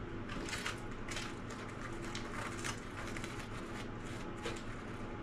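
Short, irregular scrapes and rustles of hot glue being worked and spread thin over a carpet repair with a plastic brush handle, over a steady low background hum.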